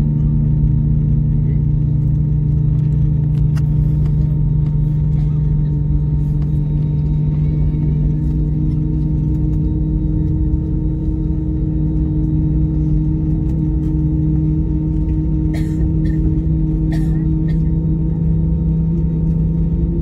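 Inside the cabin of an Airbus A321neo taxiing: the engines' steady low hum with a droning tone, plus two short clicks about three-quarters of the way through.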